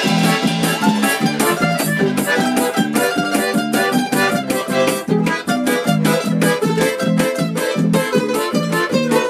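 Small Russian folk ensemble playing live: domra and balalaika, bayan button accordion, bass guitar, and a cajón with a cymbal keeping a steady beat.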